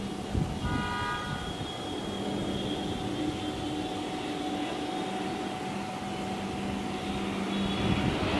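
CASA C295 twin-turboprop approaching, a steady low propeller drone growing slightly louder as it nears. A horn sounds briefly about a second in.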